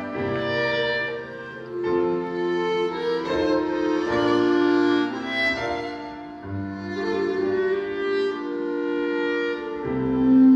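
Instrumental ensemble playing a melodic passage, with sustained bowed-string lines from violin and cello over piano, the notes changing every second or two.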